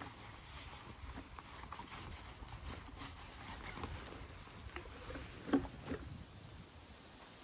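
Gear being handled and packed into a backpack: rustling and small clicks, with two louder knocks close together a little over halfway through.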